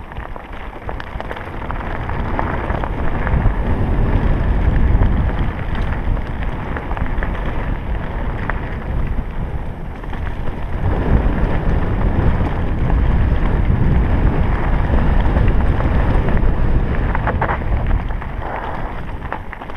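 Wind buffeting the microphone over mountain bike tyres crunching and rattling across a loose stony trail on a fast descent, swelling louder a couple of seconds in and again about halfway through.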